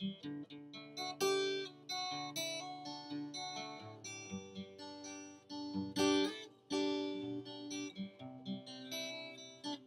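Acoustic guitar playing a song's instrumental intro: chords and notes struck one after another, a fresh attack about every half second, with low bass notes under them.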